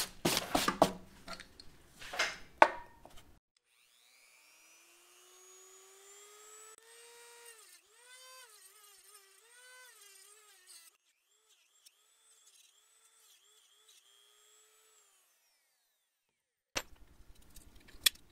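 Knocks and handling clatter, then a small variable-speed rotary tool (Dremel MultiPro) with a cutoff disc whining as it spins up, its pitch rising. Its pitch dips again and again as the disc cuts into the device's plastic shell, then it fades and winds down, with more handling knocks near the end.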